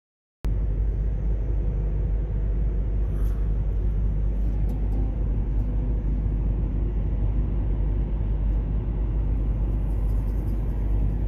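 Steady low rumble of a running vehicle, cutting in abruptly about half a second in.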